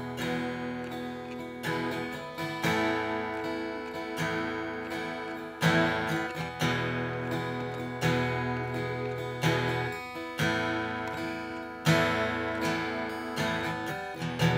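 Slow instrumental worship music on a strummed acoustic guitar, each chord struck and left to ring out and fade.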